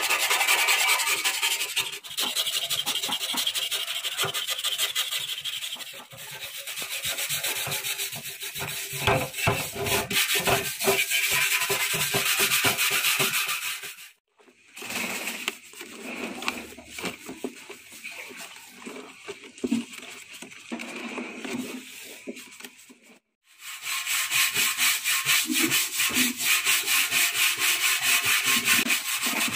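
A scraper blade rasps in fast, repeated strokes across the old paint of a Honda CG125's steel fuel tank. The sound cuts out twice, with a quieter stretch of scraping in between. Near the end comes steady, fast scrubbing of the soapy tank with a scouring pad.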